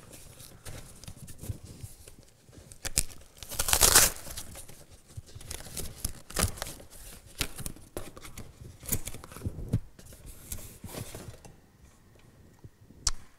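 Long cardboard box being opened by hand: the end flap and tape tearing and the cardboard scraping and rustling in irregular bursts, loudest about four seconds in.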